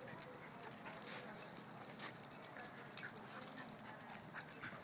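A Shiba Inu and a miniature schnauzer play-fighting: brief whines and yips over scuffling, with scattered short clicks.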